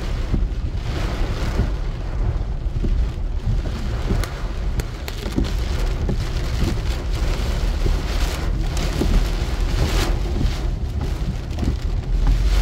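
Heavy rain beating on a car's windscreen and roof, heard from inside the cabin as a dense, steady patter of drops over a constant low rumble.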